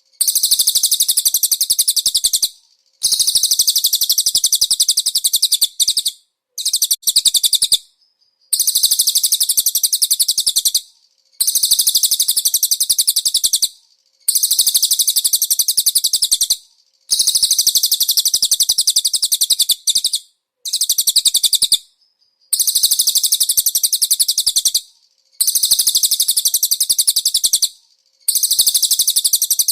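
Cililin song used as a tutor recording for white-eyes: very rapid, high-pitched chattering trills in bouts of two to three seconds, about eleven bouts with short breaks between them.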